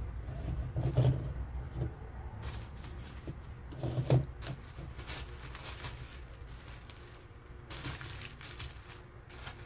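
Hands handling a cut piece of cardboard gift-wrap tube and tissue paper, pressing the cardboard into a paper cup: intermittent rustling and rubbing, with two soft bumps about one second and about four seconds in.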